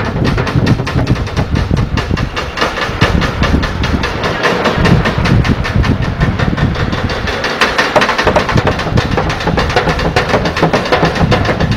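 Bucket drumming: sticks beating a fast, dense, driving rhythm on upturned plastic buckets, plastic jerrycans and metal pans.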